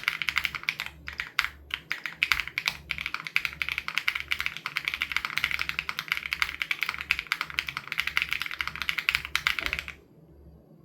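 Fast, continuous typing on an SPM AL87B mechanical keyboard with BSUN Raw switches: a dense stream of key clacks with short gaps about a second in, stopping abruptly about a second before the end.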